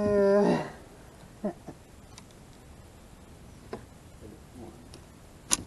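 A man's short hum at the start, held on one pitch and then bending away. Then quiet, with a few faint clicks and one sharp click near the end, from handling a folding pocketknife and fishing rod.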